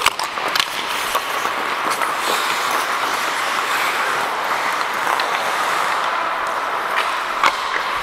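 Ice hockey play heard from a referee's helmet: a steady scraping hiss of skate blades on ice, with a few sharp clacks of sticks and puck.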